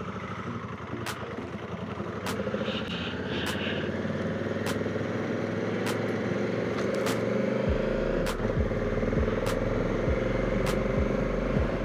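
Honda Africa Twin CRF1100L's parallel-twin engine running under way, its pitch rising slowly as the bike gathers speed, with a low wind rumble coming in after about eight seconds. A faint tick repeats about once a second, and two short high beeps sound about three seconds in.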